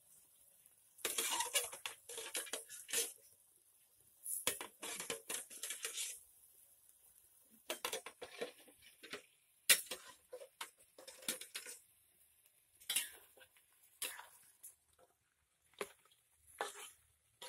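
Metal spatula scraping and clanking against a wok as pieces of chicken are stirred, in bursts of a second or two with short pauses, and one sharp clank about ten seconds in.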